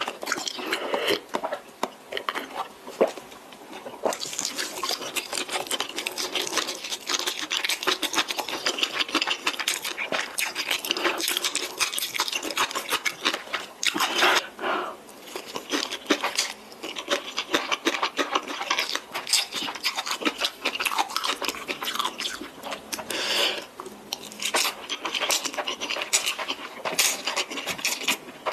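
A person eating spicy instant noodles close to the microphone: continuous wet chewing and mouth clicks.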